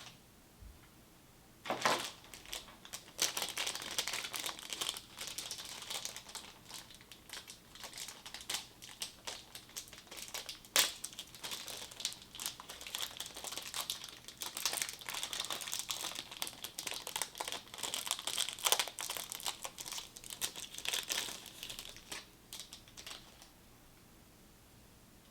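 Plastic packaging being handled, crinkling and crackling irregularly for about twenty seconds, with one sharp snap about eleven seconds in.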